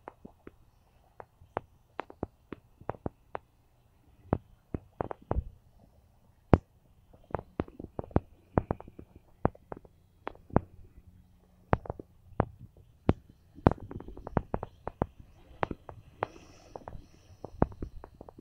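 Microphone buffeting: irregular sharp pops and thumps, about one to three a second, over a faint low rumble.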